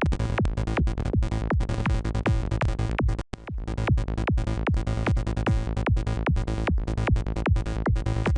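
Synth sequence from NI Massive playing back as a loop: a fast, even run of short 16th- and 32nd-note notes at 150 BPM, each with a quick downward sweep, over a steady low bass. There is a brief gap about three seconds in.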